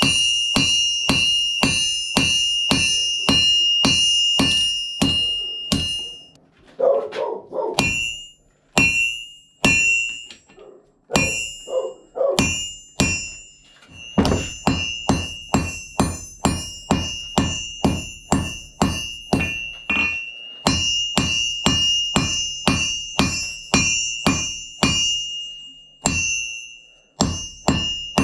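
Hand hammer striking steel on an anvil in a steady rhythm, about two to three blows a second, each blow ringing with a bright note. The hammering breaks off briefly about six seconds in and again near eleven seconds, then resumes.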